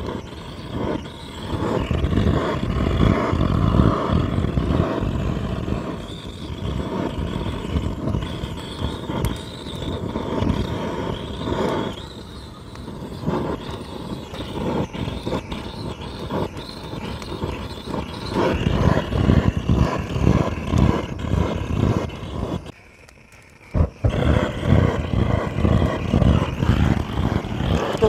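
Handheld butane torch flame roaring steadily against split oak firewood in a fire pit, swelling and easing as the flame is moved. The roar breaks off for about a second near the end.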